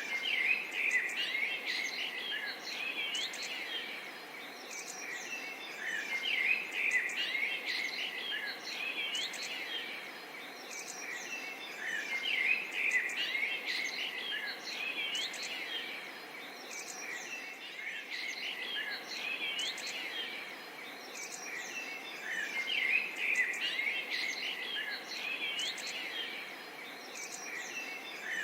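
Forest and swamp ambience: a chorus of birds chirping and calling, swelling in waves every three seconds or so, over a steady hiss of insects.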